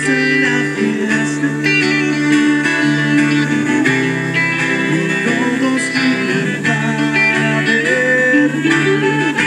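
Acoustic guitar and saxophone playing an instrumental passage, the saxophone carrying a sustained, gliding melody over the guitar's accompaniment.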